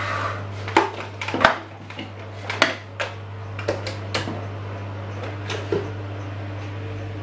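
Handling sounds on a kitchen worktop: a scatter of short clicks and knocks as tins, jars and utensils are moved and set down, over a steady low hum.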